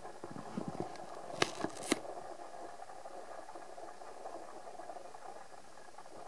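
Steady room hum, with a few soft knocks in the first second and two sharp clicks about one and a half and two seconds in.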